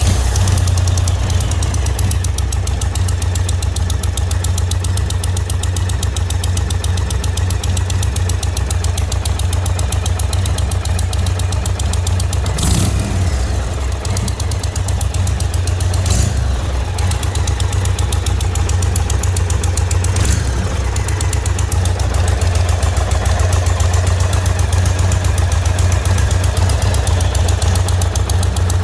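The Thunder Stroke 116 V-twin engine of a 2020 Indian Roadmaster runs steadily at idle just after starting, with an exhaust tick from the front header pipe where it enters the cylinder. The owner suspects a blown donut gasket. Three brief sharp sounds stand out around the middle.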